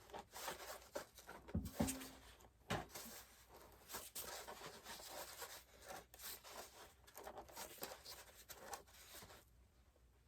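Hands handling and adjusting a whitewater kayak's outfitting: scattered rubbing and scraping with light clicks, and a louder knock about two seconds in.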